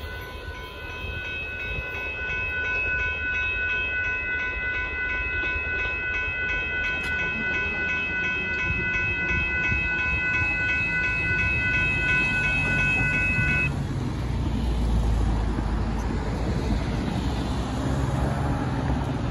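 Amtrak Texas Eagle passenger train passing with its horn held in one long steady chord that cuts off suddenly about fourteen seconds in, over the rumble of the train. Road traffic rumble follows.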